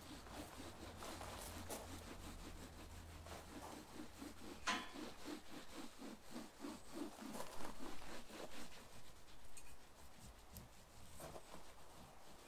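Soft side of an old sponge rubbing back and forth on a camper van's painted side wall, scrubbing off black streaks in quick, even strokes, about three a second, that grow sparser near the end. One sharp click partway through.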